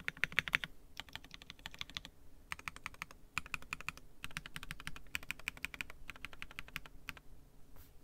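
Mechanical keyboard with lubed Durock POM switches and MT3 keycaps being typed on in quick bursts of keystrokes with short pauses between them, thinning to a few single strokes near the end.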